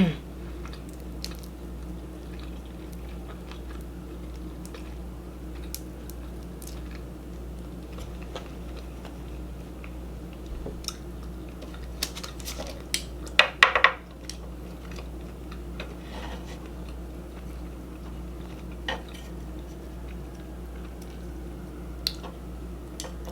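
Eating sounds: sporadic small clicks of utensils and dishes with chewing, over a steady low hum, and a brief louder clatter about halfway through.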